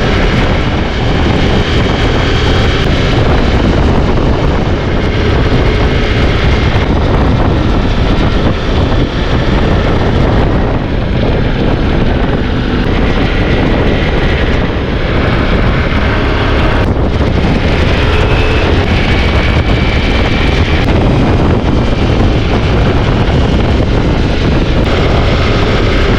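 Motorcycle riding in strong wind: a loud, steady rush of wind over the microphone, with the Ducati Multistrada V4S engine running underneath, its pitch drifting slightly.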